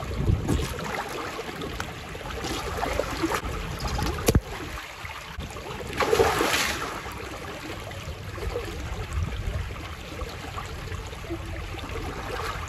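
Jacuzzi water churning and lapping as people move in it, over a steady low rumble, with a few louder splashes and a sharp knock a little after four seconds.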